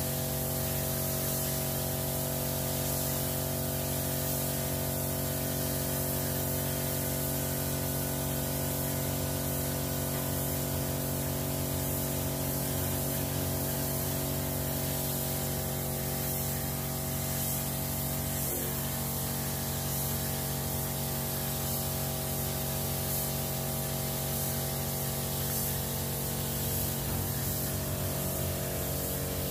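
Gravity-feed spray gun hissing steadily as it sprays white paint, over a steady hum.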